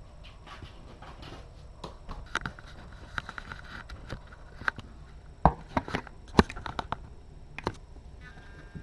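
A string of irregular sharp clicks and light knocks of handling, with a brief scratchy rustle a few seconds in. The two loudest knocks come a little past the middle.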